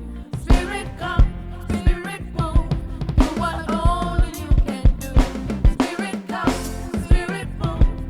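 Worship band playing an instrumental passage with the drum kit to the fore: frequent bass-drum and snare hits over sustained pitched instruments, without singing.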